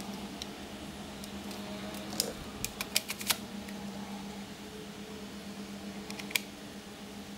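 Small sharp clicks and taps of hands and a screwdriver working on an opened laptop's parts: a quick cluster of about five clicks about two to three seconds in and a single click near the end, over a steady low hum.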